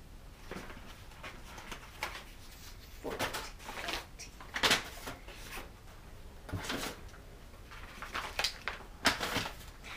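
Cardboard gift boxes and paper packets being handled and shuffled on a table: scattered rustles, slides and light knocks, about eight or nine short ones spread through.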